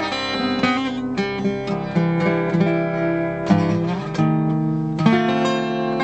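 Steel-string Stanford acoustic guitar played solo, a run of picked notes and chords ringing out in the song's instrumental introduction, with no singing.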